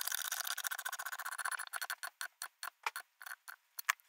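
Hand ratchet clicking as it tightens the V-band clamp on a turbocharger: a rapid, dense run of clicks for about the first second and a half, then thinning to separate clicks a fraction of a second apart.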